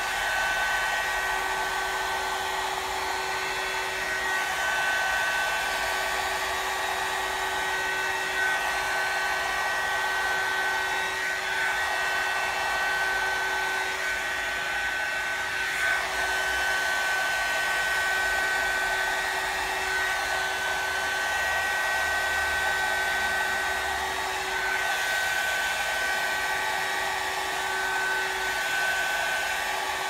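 Hot-air curl dryer running steadily while blow-drying hair: a constant whine over a rush of air.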